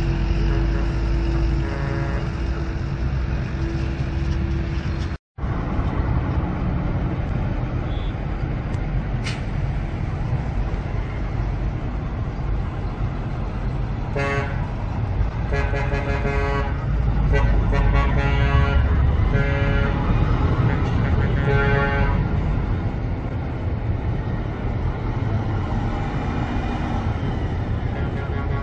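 Diesel bus and truck engines and road traffic rumbling steadily, cutting out for an instant about five seconds in. From about halfway through, a vehicle horn sounds a run of short repeated toots for several seconds.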